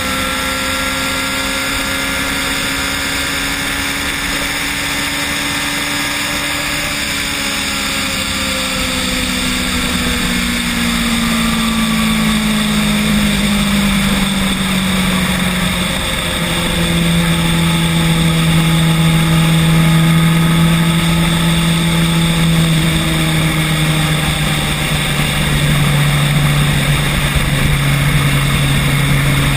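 Electric scooter motor whining during a ride, over a steady rush of road and wind noise. Its pitch slides slowly down over the first half as the scooter slows, then holds steady.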